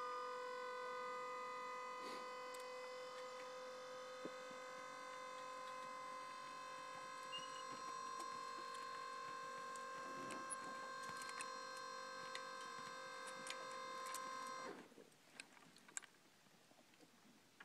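Small motor on a bale wagon whining steadily as it powers the loading arms that lift a round bale, with several tones at once. It stops suddenly near the end, leaving a few light clicks.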